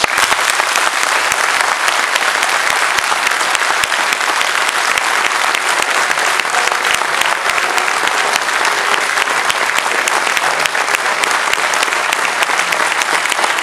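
Audience clapping: many hands applauding together, starting abruptly and holding steady.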